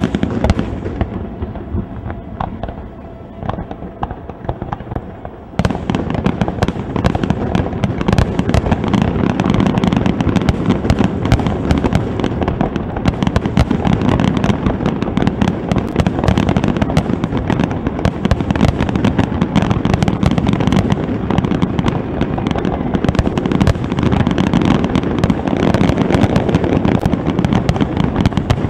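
Aerial fireworks shells bursting. A loud bang at the start is followed by a few scattered bangs and pops, then about five and a half seconds in a dense, continuous barrage of overlapping bursts begins and keeps going without a break.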